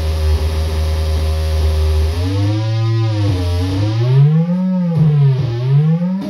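Circuit-bent Meowsic toy cat keyboard making a steady low buzzing drone. About two seconds in it changes to a warbling tone that slides slowly up and down in pitch several times, like a siren, and cuts off sharply at the end.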